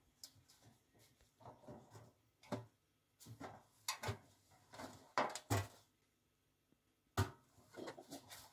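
Honey badger rummaging in a ribbed galvanized metal bin: irregular rustling of the plastic bin liner with knocks and scrapes against the bin and its lid, several sharper knocks in the middle and another about seven seconds in.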